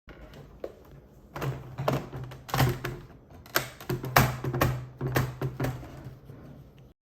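Plastic clicks and taps of foam darts being pushed one by one into a Nerf blaster's magazine, irregular and of varying loudness, over a low hum that comes and goes.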